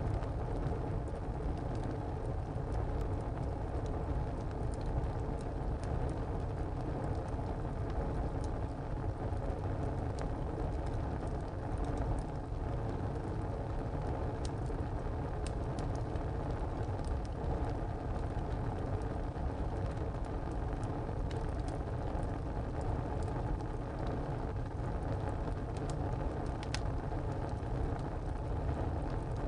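Wood fire burning in a tile stove: a steady low rush of flame with scattered crackles and pops from the burning wood, one sharper snap near the end.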